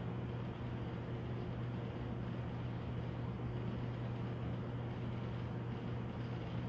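Steady low electrical or fan-like hum with an even background hiss, unchanging throughout, with no distinct events.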